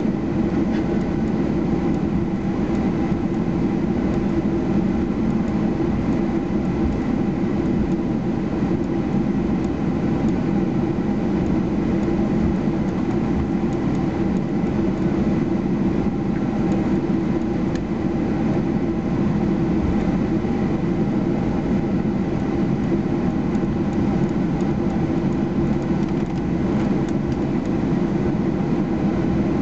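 Cabin noise inside a Boeing 737-800 taxiing after landing: a steady low rumble from its CFM56-7B jet engines at taxi power and the wheels rolling on the taxiway, with a faint steady high whine.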